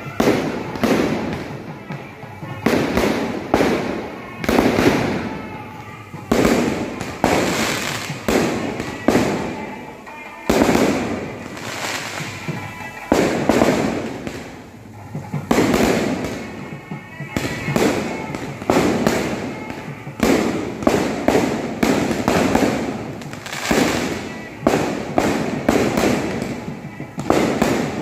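A non-stop fireworks display: aerial shells and firecrackers going off in quick succession, about one or two loud bangs a second, each trailing off in an echo before the next.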